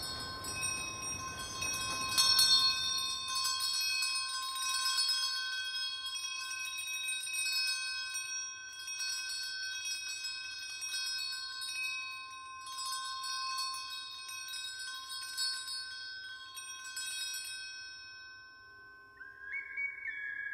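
Small brass handbell rung repeatedly, with bright overlapping ringing from its clapper strikes, fading out about eighteen seconds in. Near the end a single high whistling tone comes in and slides down in pitch.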